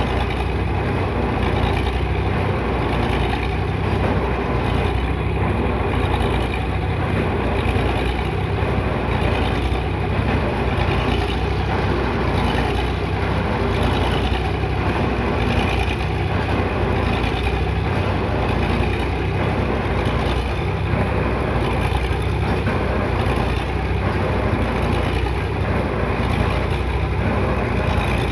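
Heavy diesel engine of piling equipment running steadily, with a faint regular pulsing about once a second.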